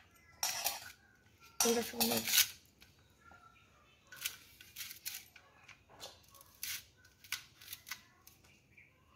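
Pieces of elephant apple peel and scraps being picked off a steel plate and dropped into a steel bowl: a run of sharp taps and clinks on the metal, loudest and closest together around one to two seconds in.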